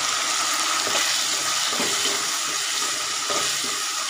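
Paneer masala gravy sizzling steadily in a kadai over the flame, with a steel spoon starting to stir it near the end.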